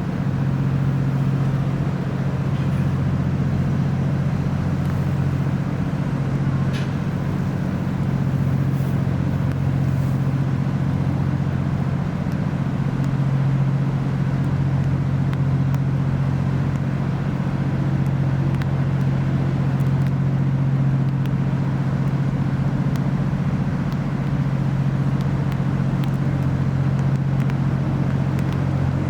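Steady low engine drone: a deep, unchanging hum with no rise or fall in pitch.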